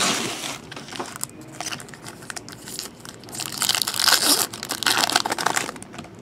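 Crinkling and crunching of trading-card pack wrappers being handled, in uneven bursts, with a longer, louder stretch about three and a half seconds in.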